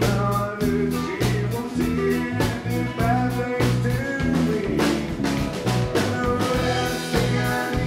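Live country band playing: a fiddle being bowed over acoustic and electric guitars and a steady drum beat.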